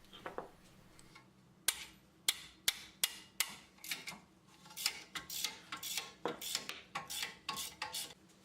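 Hammer tapping on a wrench to break loose a 17 mm brake caliper bolt: a series of sharp metallic taps, about two to three a second.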